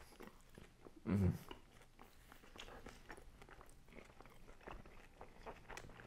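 Close-miked chewing of crispy thin-crust pizza: a run of small crunches and wet mouth clicks. About a second in there is a short, loud, low vocal sound from the eater.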